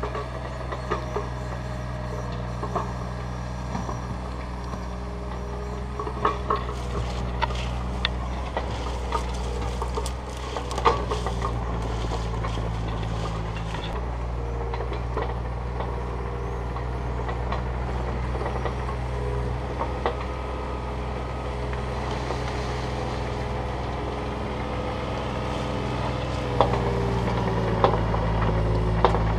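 Takeuchi TB235 mini excavator's diesel engine running steadily as the machine works its way down a steep dirt trail, with scattered clanks and knocks. The engine note shifts about halfway through and grows louder near the end as the excavator comes closer.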